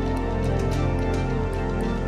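Background music laid over the video: sustained tonal chords with a steady beat.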